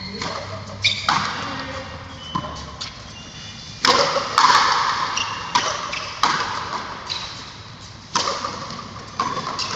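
Frontenis rally: a ball struck by rackets and smacking off the concrete frontón wall and floor, a sharp hit every second or so at an uneven pace, each ringing on in the echo of the big covered court. The hardest hits come about four seconds in.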